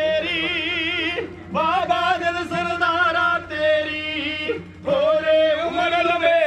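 A singer in a Punjabi song holding long, wavering vibrato notes in three sustained phrases, with short breaths about a second and a half in and again after four and a half seconds.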